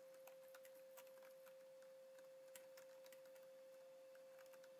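Near silence, with faint scattered clicks of typing on a computer keyboard over a faint steady tone.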